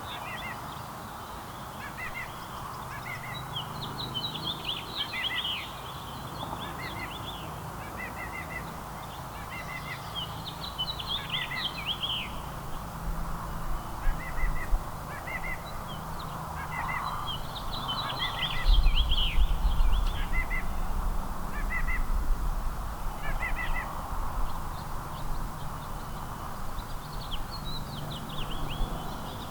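Small songbirds chirping and singing in quick runs of short, high, sliding notes that keep repeating. A low rumble comes in about two-thirds of the way through and is the loudest sound there.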